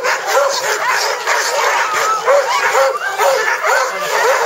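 A yard full of sled dogs calling all at once: many short yelps and whines that rise and fall, overlapping without a pause.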